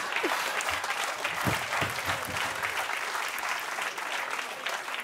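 Studio audience applauding, the clapping slowly dying down.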